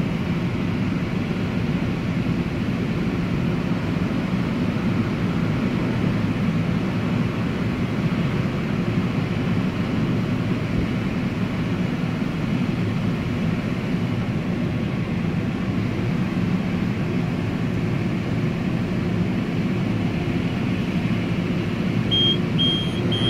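Steady low rumble heard from inside an idling minivan's cabin, with the car wash's dryer blowers running on the car ahead. Near the end a row of short, evenly spaced high beeps starts.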